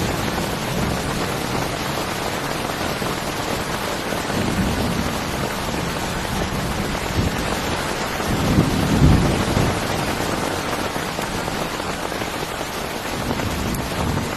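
Heavy rain falling steadily, with a rumble of thunder swelling and fading about eight to ten seconds in.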